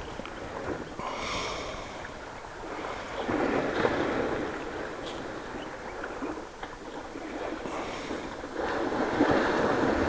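African elephants wading and swimming, sloshing and splashing through the water. The splashing swells about three seconds in and again near the end.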